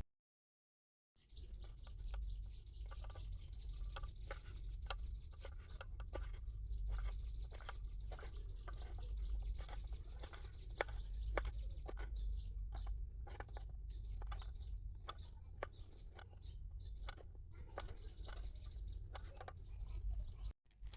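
Small birds chirping busily in quick, irregular calls over a steady low rumble, starting about a second in after a moment of dead silence and cutting out briefly near the end.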